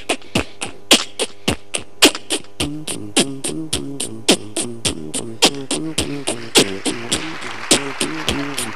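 A man beatboxing into a handheld microphone: sharp mouth-made drum hits, about three or four a second in a steady groove. A hummed bass line joins in under them about two and a half seconds in.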